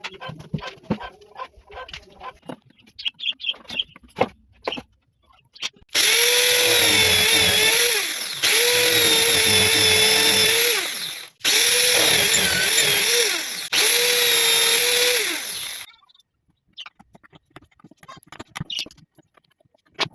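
Handheld electric power tool motor run in four bursts of two to three seconds each, its pitch dropping as it spins down after each burst. Light taps and clicks of handling come before and after.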